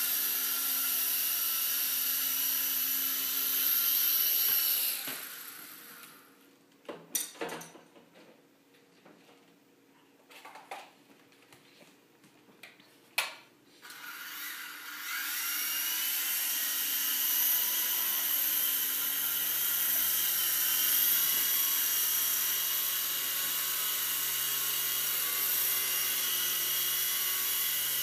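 Micro RC helicopter's electric motor and rotors whining with several high pitches at once. The whine dies away about five seconds in as the helicopter is powered down, leaving a few sharp clicks. About fourteen seconds in, a helicopter's motor spins up with a rising whine and then runs steadily.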